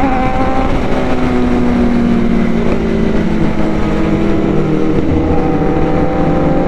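Sport bike engine running hard at highway speed with wind rushing over the microphone. Its note steps up at the start, sags slowly, then climbs again over the last couple of seconds.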